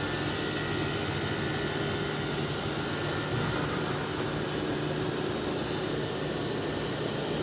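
Window air conditioner running: a steady rush of air from its fan with a low hum underneath.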